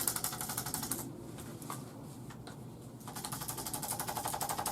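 Handheld electric chiropractic percussion instrument tapping rapidly in two bursts: the first lasts about a second, the second starts about three seconds in, with a couple of single taps between.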